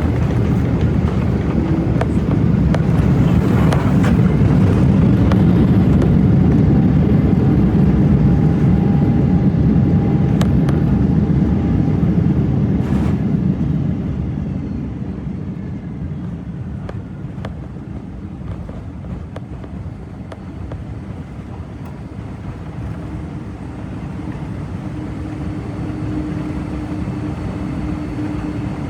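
Cabin noise inside a Boeing 777-200 rolling out on the runway after landing: a loud, steady rumble with small rattles and clicks, which drops off about halfway through as the jet slows and then stays quieter.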